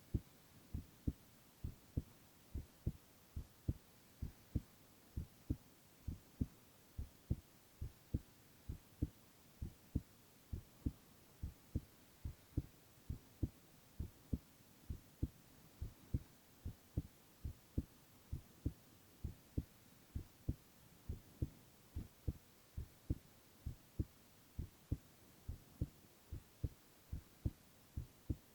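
A man's heartbeat recorded close up, a steady, regular double thump (lub-dub) repeating evenly, low and deep, over a faint background hiss.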